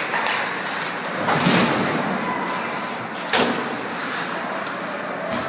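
Ice hockey play at rink level: a steady wash of skating and arena noise, with a heavier thud about a second and a half in and a sharp bang against the boards or glass about three and a half seconds in.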